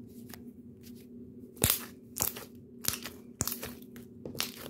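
Glitter slime being pressed and folded by hand, its trapped air bubbles bursting in sharp, crackly pops, about five of them, the loudest about one and a half seconds in.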